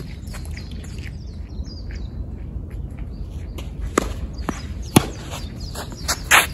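Tennis ball being struck by rackets and bouncing in a rally: a sharp pop about four seconds in, another a second later, and a louder cluster of hits near the end, with birds chirping in the background.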